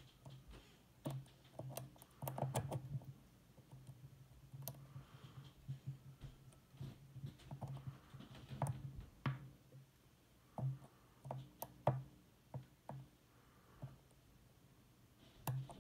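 Lock pick working the pin stack of a Basi K10 dimple lock, a Dom IX10KG clone: irregular small metallic clicks and light scraping as the pins are lifted and set.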